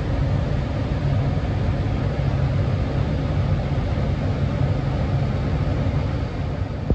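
Tractor engine running steadily, a continuous low rumble with a broad rushing noise over it.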